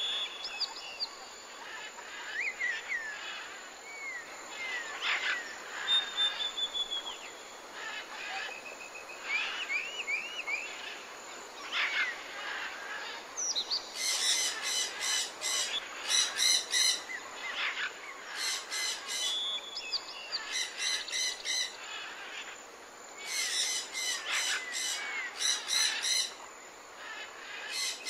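Birds singing and calling: a mix of short chirps and whistled notes, joined from about halfway through by repeated bursts of a rapid, buzzy trill.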